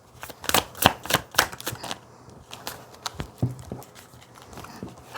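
Tarot cards being shuffled and handled: an irregular run of light flicks and taps, busiest in the first two seconds and sparser after.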